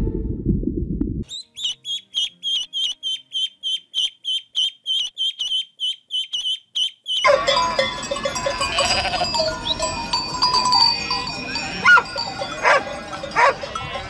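Farm animals calling: a high-pitched call repeated about three times a second for some six seconds, then from about seven seconds in a dense chorus of many overlapping animal calls.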